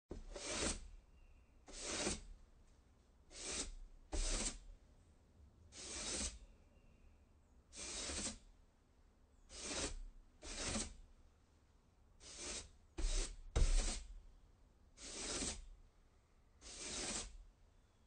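Broom sweeping a wooden porch: a series of short brushing strokes across the boards, one every second or two, with a few in quick succession a little past the middle.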